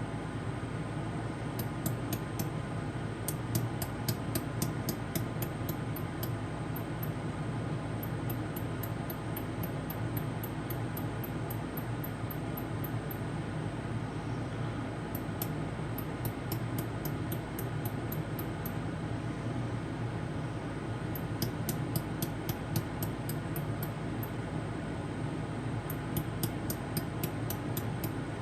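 Orion LZR100 pulsed laser welder firing, each pulse a sharp high tick, in runs of about three a second. The runs come in five bursts of a few seconds each, with pauses between them, over a steady low hum.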